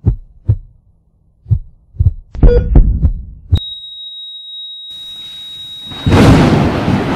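Heartbeat sound effect: deep thumps in lub-dub pairs about half a second apart. About three and a half seconds in it gives way to a click and a steady high flatline beep lasting a couple of seconds. Near the end a loud rushing noise cuts in.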